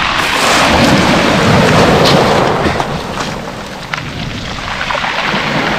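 Sea surf: a wave breaking on the shore, a rushing noise that swells and then fades after about three seconds.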